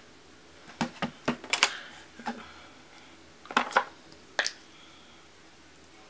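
Clicks and clacks of small plastic makeup items being handled, about eight sharp ones spread between about one and four and a half seconds in.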